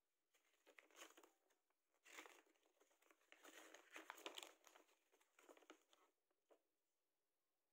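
Faint crinkling and rustling of plastic packaging and a glossy paper leaflet as they are handled: the leaflet is pulled from the box and unfolded. It comes in uneven bursts and stops about six and a half seconds in.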